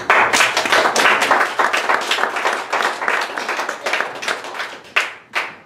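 Congregation applauding: dense clapping that thins out near the end to a few scattered last claps.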